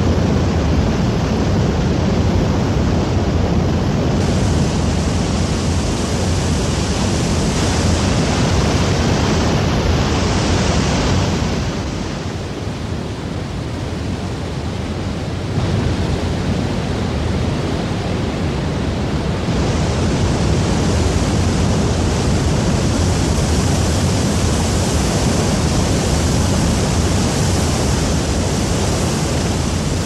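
Roaring Meg waterfall: water pouring and crashing down a rock face in a loud, steady rush. It drops a little for a few seconds about halfway through, then comes back suddenly.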